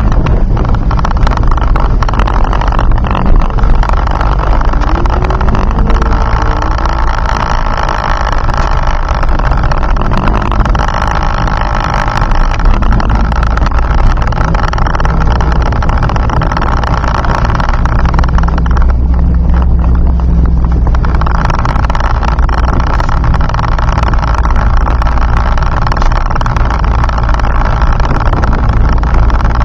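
Turbocharged Ford Focus ZX3's four-cylinder engine heard from inside the cabin, running loud and steady as the car drives, mixed with road noise. About nineteen seconds in, the higher part of the sound drops away for about two seconds, then returns.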